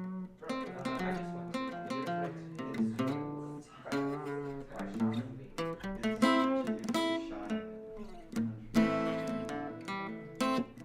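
Acoustic guitar played loosely: picked notes and strummed chords, noodling rather than a set song, with the loudest strummed chords about six and nine seconds in.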